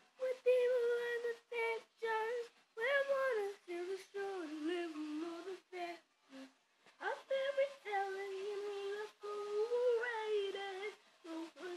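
A child singing solo and unaccompanied in a high voice. She holds long, drawn-out notes in short phrases, with a pause about halfway through.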